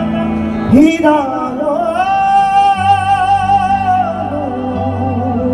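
Male singer singing a Punjabi folk song live through a PA. He slides up onto a word about a second in and then holds one long wavering note for about two seconds, over a band accompaniment with a steady low drone.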